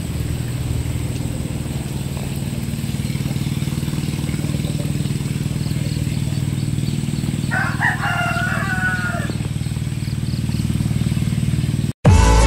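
A rooster crows once, about seven and a half seconds in, over the steady low hum of an engine running. Near the end the sound cuts off abruptly.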